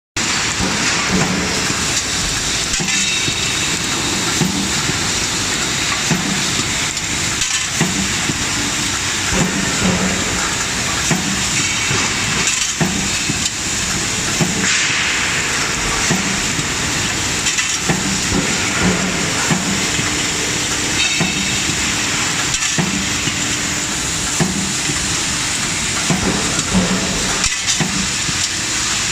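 Factory machinery running: a steady loud hiss with repeated low knocks about once a second and an occasional sharp metal clank.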